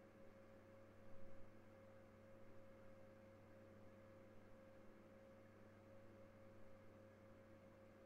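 Near silence: a faint, steady electrical hum with a thin constant tone, and one brief soft sound about a second in.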